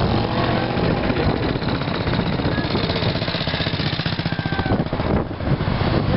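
Motorcycle engine passing close at low revs: a rapid, even pulsing that dies away about five seconds in.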